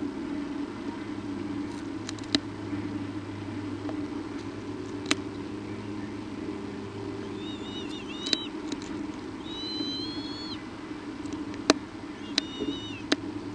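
Young birds in the nest giving short, high, wavering peeping calls, several in the second half, with a few sharp clicks or taps in between, over a steady low hum.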